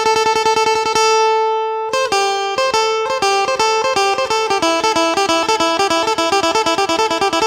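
Phin, the Isan Thai lute, played with a pick in the lam phloen style: rapid repeated plucks over a ringing drone note. About a second in one note is left to ring alone, and just before two seconds the fast-picked melody starts up again.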